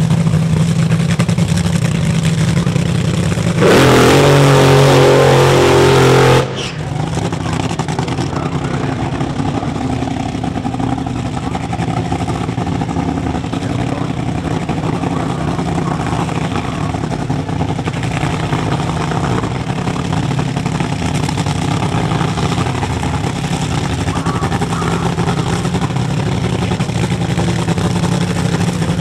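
Drag racing car's engine running at a steady drone, with a louder burst of revving about four seconds in that lasts about three seconds and cuts off suddenly.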